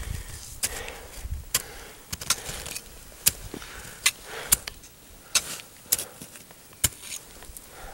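Ice axes and crampons striking hard snow: a string of sharp, short crunches and metallic clinks, roughly one a second, at the pace of climbing steps.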